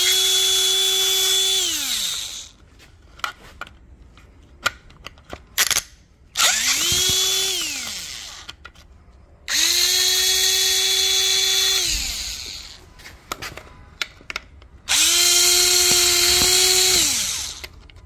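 Power drill driving a long Torx T30 extension bit to unscrew the reservoir bracket bolts on a Mercedes M273 engine. It makes four runs of a steady motor whine, each spinning up and winding down. The first run stops about two seconds in, and the later ones come near the middle and near the end, with small clicks of the bit and bolts in the pauses.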